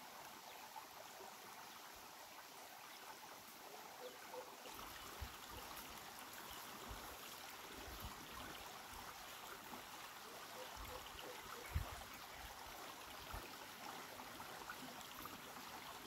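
Faint, steady outdoor forest ambience, an even hiss like distant running water or leaves in the wind, with a few soft low knocks. The loudest knock comes about twelve seconds in.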